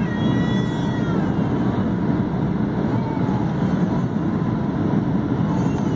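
Steady rumble of jet engines and airflow heard inside an airliner cabin on approach to landing, with a few faint gliding tones above it.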